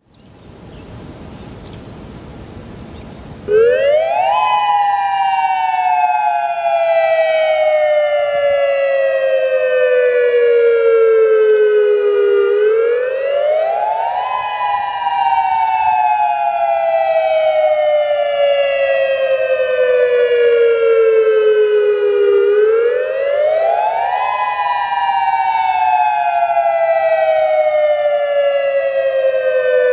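Federal Signal Modulator II 8032B-C outdoor warning siren coming on about three and a half seconds in and sounding its dual-tone wail: two close tones that sweep up quickly, then slide slowly down, repeating about every ten seconds.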